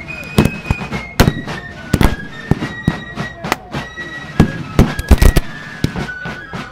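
Black-powder rifle muskets firing blanks in ragged, irregular volleys, some shots close and loud and others distant, with a quick cluster of several shots about five seconds in. Under the gunfire a high-pitched wind instrument plays a tune, stepping from note to note.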